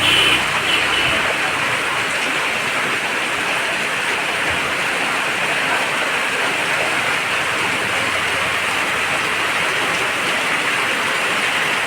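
Heavy rain falling steadily, an even dense hiss of drops.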